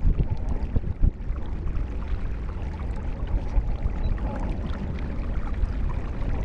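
Water and wind noise around a kayak on open water: a steady low rumble with small splashes, and a couple of light knocks near the start and about a second in.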